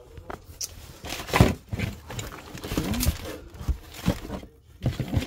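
Hands rummaging through a box of bags and packaged goods: plastic and cardboard packaging crinkling and rustling, with irregular knocks as items are moved, the loudest about a second and a half in.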